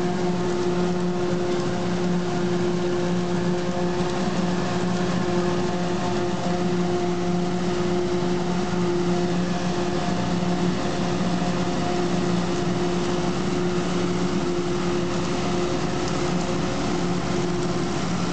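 Self-propelled forage harvester chopping standing maize and blowing it into a trailer, with the tractor pulling the trailer running alongside: a loud, steady machine drone with an unchanging hum.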